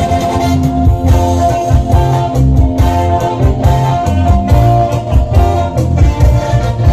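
A band playing loud music through a sound system, with bass notes and a steady drum beat.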